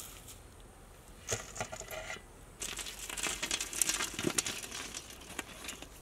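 Live coals being shovelled and dropped onto the flat metal lid of a large dough-sealed pot, clinking and scraping, to give dum heat from above. There are two spells of clatter, the first about a second in and the longer one from about two and a half to five seconds in.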